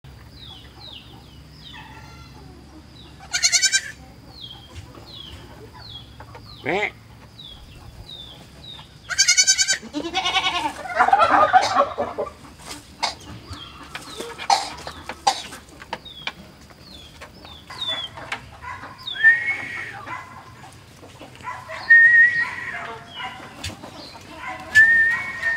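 A young goat kid bleating in short, wavering calls, against a bird chirping repeatedly in the background and chickens clucking. Near the end come calls from a strutting tom turkey.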